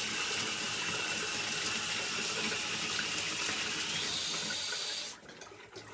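Hot water running from a utility-sink faucet into a foam cup, a steady rush with a faint high note that rises about four seconds in. The tap is shut off a little after five seconds.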